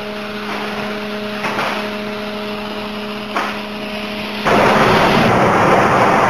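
A plasma cutting table's steady machine hum, with two short knocks. About four and a half seconds in, a loud, even hiss starts abruptly and covers the hum, as the plasma torch begins cutting.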